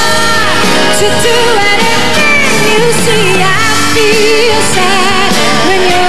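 A woman singing a pop ballad live into a handheld microphone over band accompaniment, with sliding runs and held notes with a wide vibrato, no clear words.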